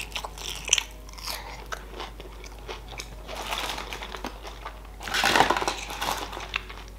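A person biting into and chewing a crumb-coated fried sushi roll, with crunches and small clicks. The chewing is loudest about five seconds in.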